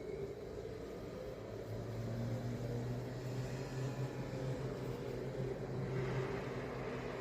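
Israeli rocket-attack warning siren wailing at a distance, its pitch slowly rising and falling over and over. It signals an incoming missile. A low steady hum comes in about two seconds in.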